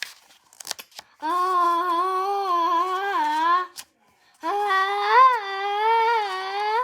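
A child's voice drawing out two long 'ahhh' sounds, the second rising in pitch at its end: the wind-up to a pretend sneeze.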